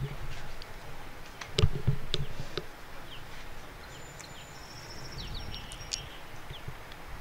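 Outdoor background noise with birds chirping: short high chirps and a few thin whistled notes in the second half. A handful of sharp knocks come in the first few seconds, the loudest about one and a half seconds in.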